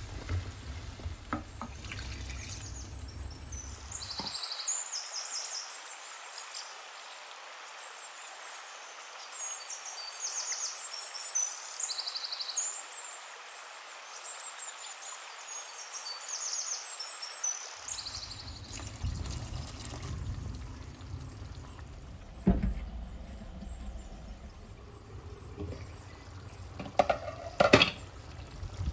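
Chicken and drumstick curry simmering in a clay pot, a steady bubbling and hissing of the thick gravy. A few sharp knocks come near the end.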